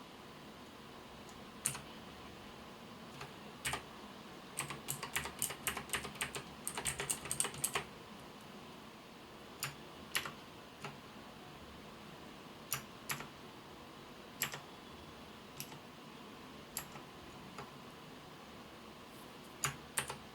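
Keys of a MAXTILL TRON G10K mechanical keyboard being pressed: scattered single keystrokes, with a quick run of typing from about four and a half to eight seconds in.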